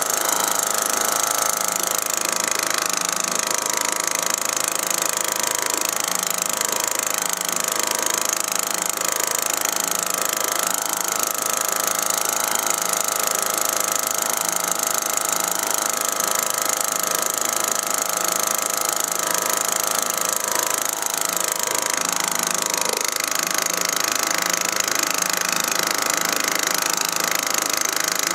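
Small outboard motor running steadily at a constant speed, pushing a canoe along.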